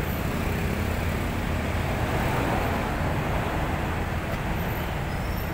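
Steady noise of heavy road traffic: motorcycles and cars passing close by, engines running and tyres on the road.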